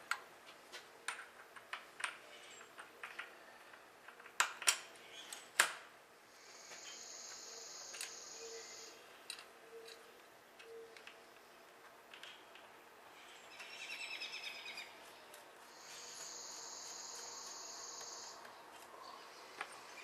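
Sharp metal clinks and taps, bunched in the first six seconds, as hands fit bolts loosely through a cast-iron Allis-Chalmers power director clutch on a steel workbench. A high, even trill sounds twice further on, about two seconds each time.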